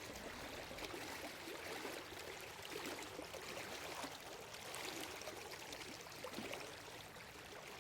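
Faint, steady sound of a stream running.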